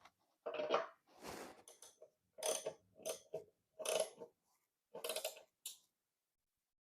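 Hands handling air-compressor assembly parts and hardware: a series of clunks and rattles with a longer scraping slide about a second in, ending about six seconds in.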